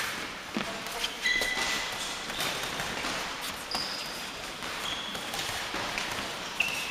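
Sport shoes squeaking briefly on a sports-hall floor as boxers move while sparring, with scattered dull thuds of gloves and feet.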